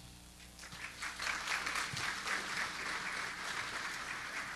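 Audience applauding, building up within the first second and then holding steady.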